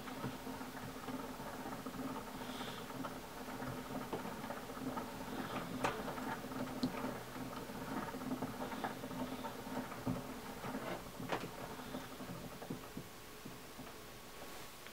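Edison Standard Phonograph's spring motor being wound by its hand crank: irregular scratchy clicks and ticks of the crank and winding ratchet over a faint steady hum.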